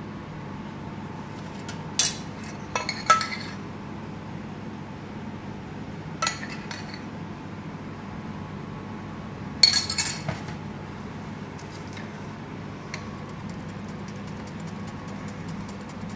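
Metal spoon clinking against a china plate and a saucepan during plating: a few sharp clinks in the first seconds, one about six seconds in and a cluster about ten seconds in, over a steady kitchen hum.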